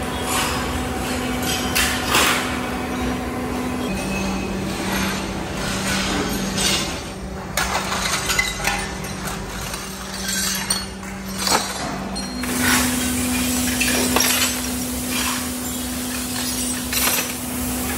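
Scrap aluminium parts clinking and clattering as they are handled and tossed into a metal hand cart, with irregular metallic clinks throughout. Under them runs a steady low hum that changes pitch twice.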